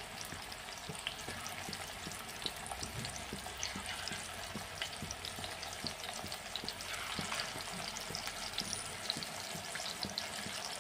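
Chicken kebab patties shallow-frying in hot oil in a pan: a steady sizzle with many small crackles and pops.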